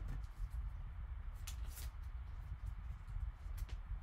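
Faint clicks and rubbing of plastic card holders handled in gloved hands, a few soft ticks over a low steady hum.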